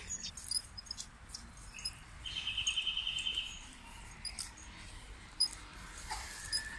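Small birds chirping in park trees: scattered short, high chirps, with a fast trill of rapid repeated notes about two seconds in that lasts a little over a second and is the loudest part.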